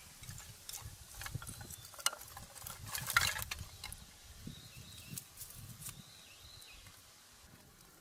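Irregular rustling and light clicks, busiest and loudest about three seconds in, then thinning out.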